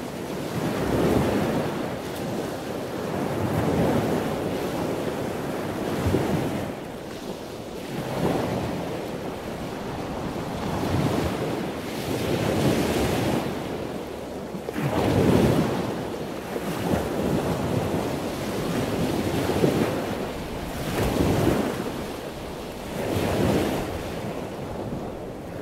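Sea waves washing in against a rocky shore, swelling and falling back about every two seconds, with wind noise on the microphone.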